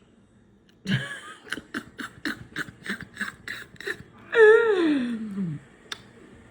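A person laughing in quick, even bursts, about four a second, for about three seconds. Then comes one long voiced cry that slides down in pitch, with a single click just after.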